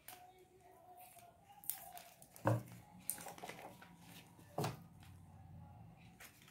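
Quiet handling noise of cut plastic-bottle leaves and green adhesive tape being worked around a rolled-paper trunk: scattered light rustles and clicks, with two sharper snaps about two and a half and four and a half seconds in.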